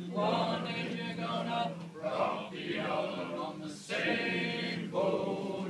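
Music: male voices singing together, choir-like, over a steady low held note.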